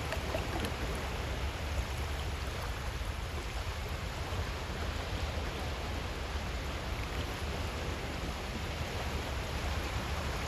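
Small, calm sea waves washing steadily over a shell beach, a continuous watery hiss with faint scattered ticks, over a steady low rumble.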